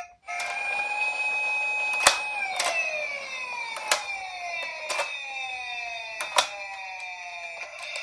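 Toy emergency-vehicle minicar's siren sounding one long tone that holds for about two seconds, then slowly glides down in pitch, with several sharp knocks along the way, the loudest about two seconds in.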